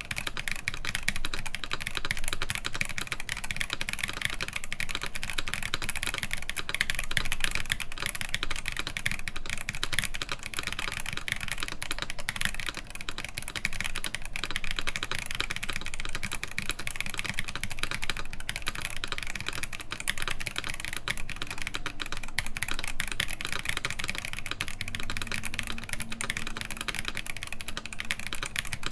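Continuous fast typing on a mechanical keyboard with Holy Panda tactile switches, GMK keycaps and a full aluminium plate: a dense, steady run of keystroke clacks.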